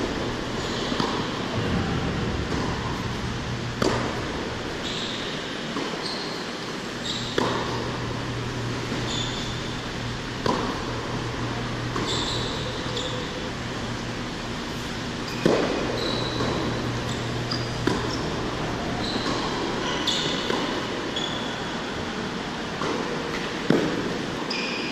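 Tennis ball struck back and forth with racquets in a baseline rally on an indoor hard court: a sharp pop every couple of seconds, the near player's shots louder than the far player's, with short high shoe squeaks on the court surface. A steady low hum of the hall's ventilation runs underneath.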